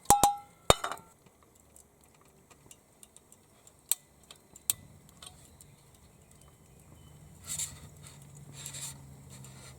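Camp cookware being handled right after hot water is poured: three sharp metallic clinks in the first second, one ringing briefly, then two lighter taps. Two short rustles come near the end.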